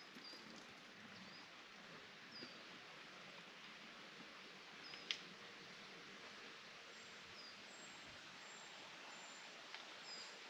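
Faint outdoor country ambience with small birds chirping briefly every second or two and a run of thin, high notes in the second half. A single sharp click about halfway through is the loudest sound.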